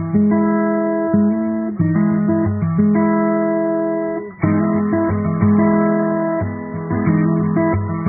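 Background music with strummed guitar chords, the chords changing every second or so.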